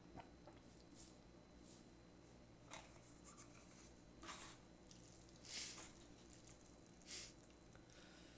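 Near silence: a low steady room hum, with a handful of faint soft swishes and squishes as instant ramyeon noodles are stirred and lifted with chopsticks in a paper bowl.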